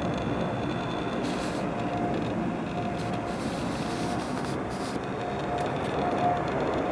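Steady jet noise from an Airbus A380's four turbofan engines as the airliner flies low overhead, with a faint whine that comes and goes.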